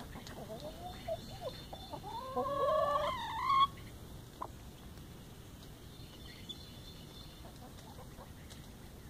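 Hen clucking and calling, a run of calls in the first four seconds that builds to a loud call rising in pitch and cutting off sharply.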